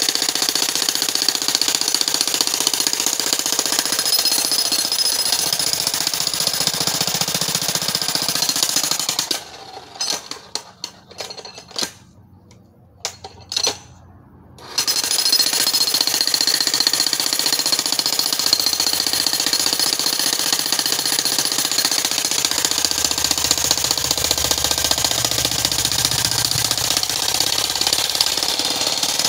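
Corded electric demolition hammer chiseling into rock, a steady rapid hammering. It stops about nine seconds in, gives a few short bursts, then runs steadily again from about fifteen seconds in.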